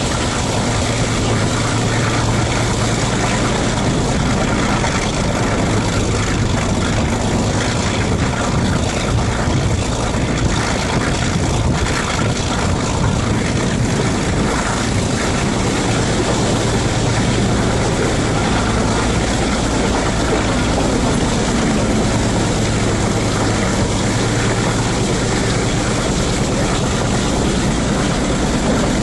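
Diesel locomotive engine running steadily under load close by, with a dense rush of wind and wheel noise from the moving train.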